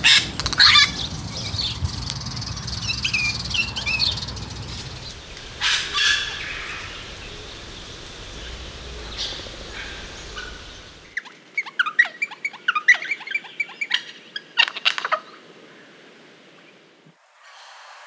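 Wattlebirds calling with harsh, guttural notes. About eleven seconds in a different recording takes over, with a quick run of short, sharp notes that stops a few seconds later.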